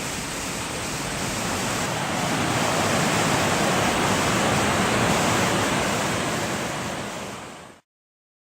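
Rushing water of a waterfall on Brasstown Creek, a steady even roar that grows louder about two seconds in, then fades and cuts off abruptly shortly before the end.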